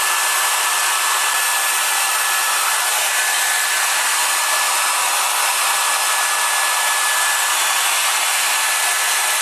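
Hairdryer running steadily on its high setting, blowing hot air to shrink heat-shrink tubing onto a wire connector: an even rushing hiss with a faint steady whine.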